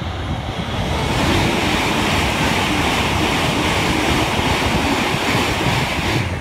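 E7/W7-series Hokuriku Shinkansen train passing at speed on the viaduct below: a loud, steady rush of air and wheels on rail. It builds about a second in and cuts off suddenly near the end.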